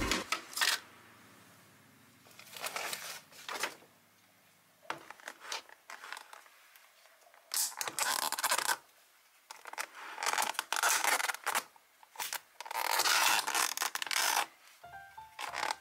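Clear plastic takeaway container and its lid being handled and peeled open, crackling and scraping in about six short bursts with pauses between.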